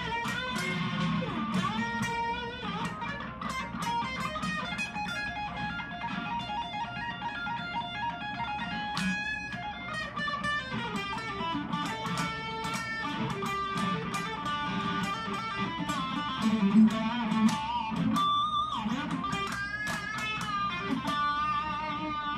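Harley Benton Modern Strat SSH electric guitar played with a distorted tone on its bridge humbucker pickup: quick single-note lead runs mixed with held notes.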